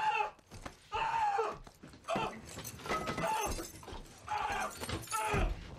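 Men grunting and yelling in pain and strain as they grapple in a hand-to-hand fight, with a heavy thud near the end.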